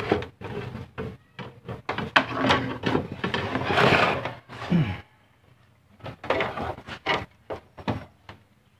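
A run of irregular clicks and knocks from handling parts and tools during repair work on an opened CRT TV, in two bunches with a short lull between, the background hiss dropping away about five seconds in.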